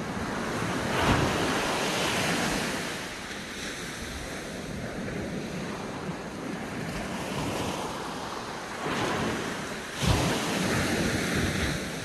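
Small sea waves breaking and washing up a sandy beach. A hissing wash swells louder about a second in and again near the end, with wind rumbling on the microphone.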